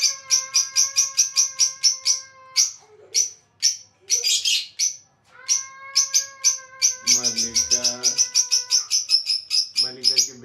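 Caged lovebirds chattering: rapid, sharp, high-pitched chirps at about eight a second, thinning out for a couple of seconds in the middle before starting up again. A steady, even-pitched tone runs under the chirping for stretches.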